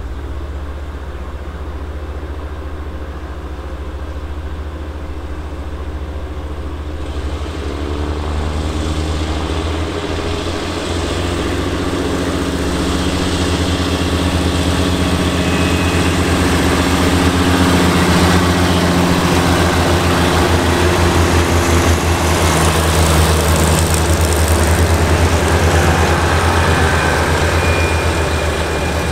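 THN/NKF diesel railcar set pulling away from a station stop. Its diesel engines idle, then about seven seconds in open up, with the engine note rising and growing louder as the train accelerates past. The noise of wheels on the rails builds with it.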